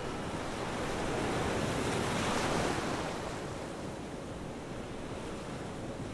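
Ocean surf: a wave swells and washes in about two seconds in, then eases back to a steady hiss of sea.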